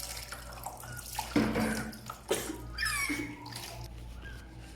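Water running into a bath or sink, with several short cries from a cat and two louder sudden splashes or knocks about a second and a half and two and a half seconds in.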